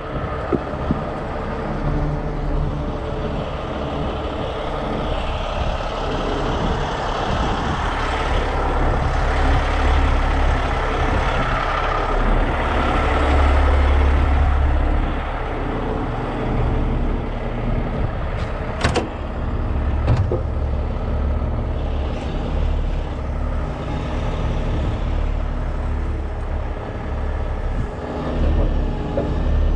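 The diesel engine of a 50-ton rotator tow truck running steadily, swelling a little partway through, with two sharp knocks about two-thirds of the way in.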